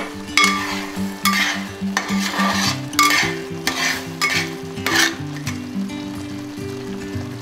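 Metal spatula stirring and scraping thick, bubbling jaggery rice payasam in a steel pot, a stroke every half second to a second, fading out after about five seconds. Background music plays underneath.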